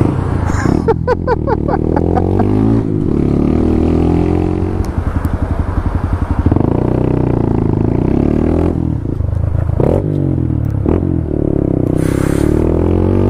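Honda Grom's small single-cylinder engine pulling through the gears, its pitch climbing under acceleration and dropping back at each change, over and over.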